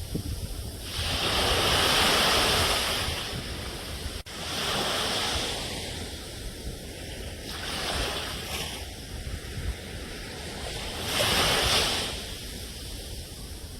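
Ocean surf: waves break and wash up the shore in surges every few seconds over a steady low rumble. There is a brief sharp break in the sound about four seconds in.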